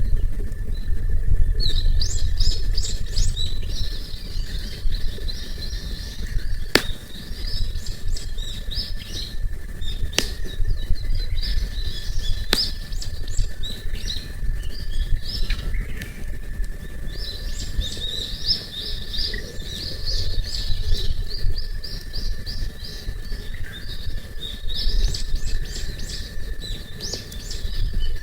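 Small birds chirping and singing in quick twittering bouts, loudest near the start and through the last third, over a steady thin high tone and a low rumble. Three sharp crackles from the campfire stand out in the middle.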